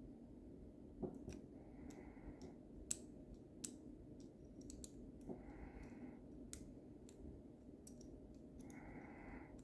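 Lever-lock picks and turning tool working inside a lever lock: irregular faint metallic clicks and ticks as the levers are probed under turning pressure. Soft breaths come three times.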